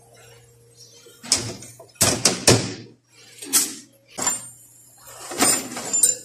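A series of short metallic clunks and scrapes, several in quick succession about two seconds in, from hand work on a GM 6T75 automatic transmission: its input shaft, gripped with locking pliers, being worked to check end play.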